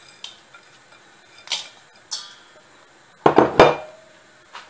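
Kitchen dishes and utensils clinking as bowls and containers are handled: a few light clicks, then a louder clatter about three seconds in with a brief ringing, and a faint click near the end.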